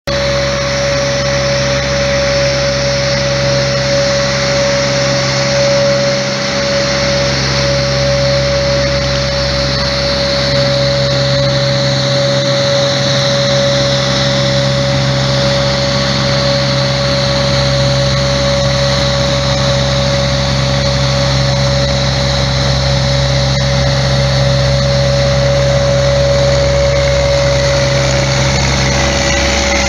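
Truck-mounted Martignani mist-blower sprayer running steadily while it blows a spray mist, its fan and the carrier truck's engine giving a continuous loud drone with a steady whining tone.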